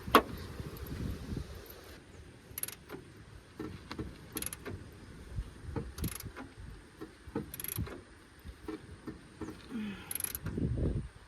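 Scattered metal clicks, clinks and knocks of hand work at a VW Kombi's wheel, being checked because it seems to be dragging. Sharper clinks come about every second and a half.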